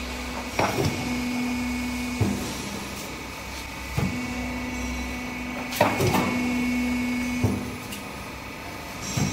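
Roofing-tile roll forming and pressing machine running through its press cycles: a steady machine hum with a held tone that comes and goes, broken by sharp clunks about every one and a half to two seconds as the hydraulic press strokes and releases.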